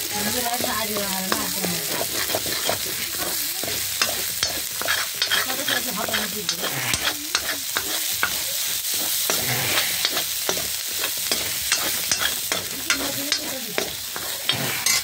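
Spice paste sizzling in hot oil in a steel wok while a metal ladle stirs it, scraping and clinking against the pan many times. This is the masala being fried.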